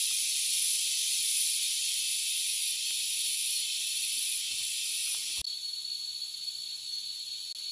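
Dense, steady high-pitched drone of an insect chorus in tropical tree cover. About five seconds in it changes abruptly to a thinner chorus carrying a steady high whistle-like tone.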